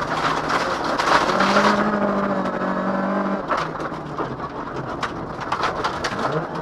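Rally car engine under load, heard from inside the cabin, holding a steady note that shifts pitch near the end. A burst of hiss about a second in and, from about halfway, rapid clicks of loose gravel striking the car's body.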